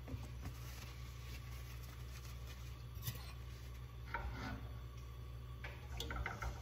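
Turkey bacon strips being arranged in a nonstick skillet: faint scrapes and light taps against the pan about three seconds in, around four seconds and near the end, over a steady low hum.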